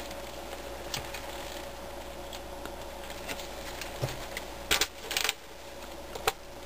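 Plastic game chips clicking and clacking on a table as a chip is taken and set down on the game board, with light handling of playing cards; the loudest clacks come just under five seconds in, and a last sharp click comes near the end. A faint steady hum runs underneath.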